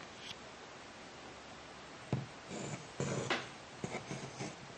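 Quiet handling noises over a faint steady hiss: a sharp click about two seconds in, then a few light clicks and rustles.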